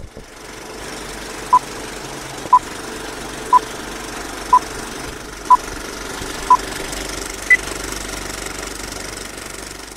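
Old-film countdown-leader sound effect: a steady film-projector running clatter with six short beeps a second apart, then a single higher-pitched beep a second later.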